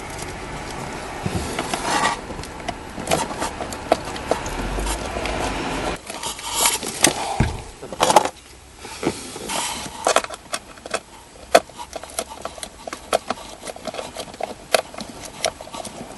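A screw being driven by hand with a screwdriver into a car's plastic blower-motor housing under the dashboard. Scraping and handling noise gives way, about eight seconds in, to a run of small, irregular clicks and ticks.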